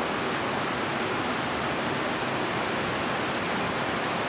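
Heavy rain hitting a shop roof, a steady even hiss with no breaks.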